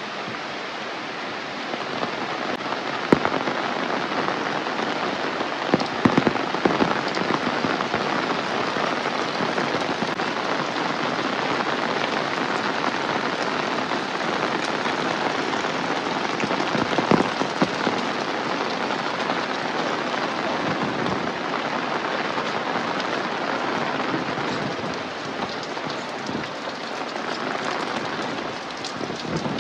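Steady rain falling on surfaces, with a few louder close drops or knocks about three, six and seventeen seconds in.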